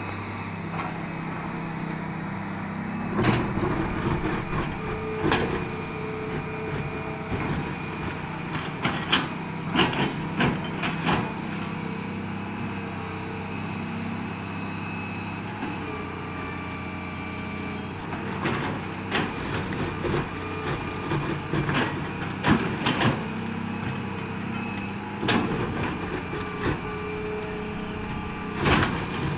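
Hitachi Zaxis ZX200 excavator's Isuzu AA-6BG1TRA six-cylinder inline direct-injection diesel running steadily, with sharp clanks and knocks from the machine's work coming at irregular intervals.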